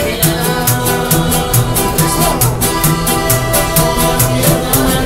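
Live mariachi band playing, with an acoustic guitar strummed in a steady beat of about four strokes a second under a sustained melody line.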